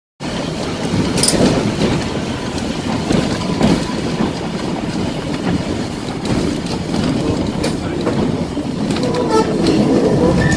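Open vintage Sintra tramcar running along its track: a steady rumble of wheels on rails with scattered clicks and knocks, after a brief gap at the very start.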